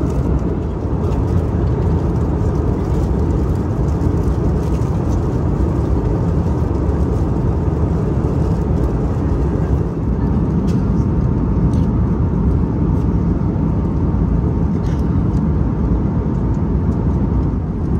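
Steady cabin noise of an Airbus A321neo in cruise: an even rush of airflow and engine noise, strongest in the low range, with a faint steady hum and a few faint clicks.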